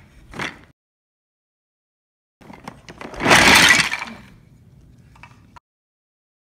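Wooden toy train track pieces clattering together in a plastic storage bin: one loud jumbled rattle lasting about a second, near the middle.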